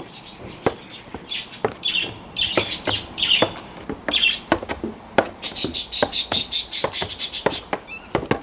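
Small birds chirping, with short high chirps early on and a fast chattering run of high notes from about five seconds in. Sharp clicks and taps are scattered through.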